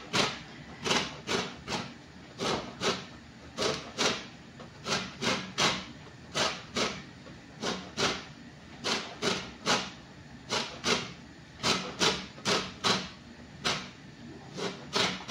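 Orange peel being grated on a metal box grater for zest: a steady run of short rasping strokes, about two or three a second.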